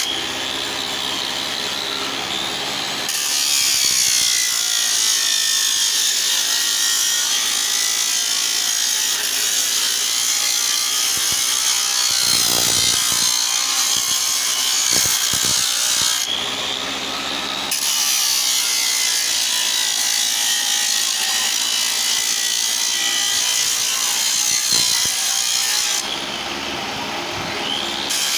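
Electric angle grinder with a sanding disc running and abrading a board's surface: a steady motor whine under a loud, high scratchy hiss. The hiss eases three times, at the start, a little past halfway and near the end, leaving mostly the motor's whine.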